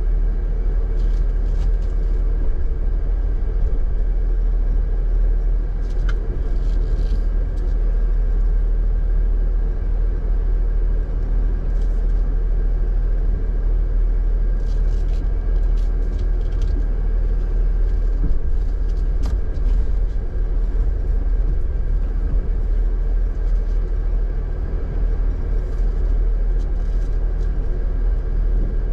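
Jeep engine running steadily at low crawling speed with a deep rumble as the vehicle creeps down over loose rock, with a few scattered clicks and knocks from the tyres and chassis on the rocks.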